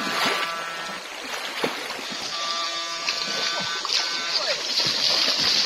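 Legs wading and splashing through a shallow stream, over a steady electric whine at several pitches from a backpack electrofishing unit. The water noise grows louder near the end.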